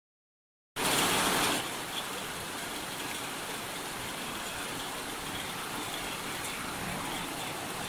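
Rain sound effect played back: it cuts in abruptly about a second in, louder at first, then settles into a steady dense hiss of heavy rain.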